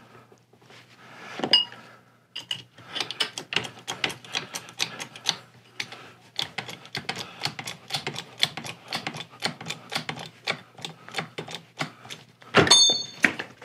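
Hands working a steel golf shaft puller: a long run of light metallic clicks and taps, several a second, followed near the end by a loud ringing metal clank.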